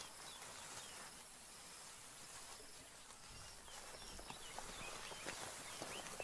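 Faint natural bush ambience: a soft steady hiss with scattered short, high bird chirps and a few light clicks, as of rustling vegetation.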